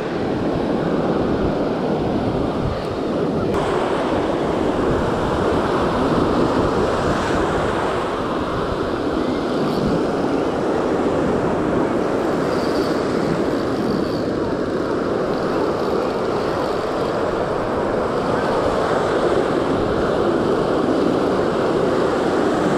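Steady rush of ocean surf breaking and washing up the sand at the shoreline, with wind noise on the microphone.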